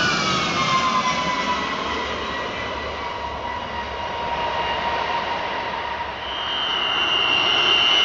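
B-52 Stratofortress jet engines whining high-pitched as the bomber flies past, the pitch sliding down at first and then holding as a steady whistle. About six seconds in, a second, higher whistle joins and the sound grows louder.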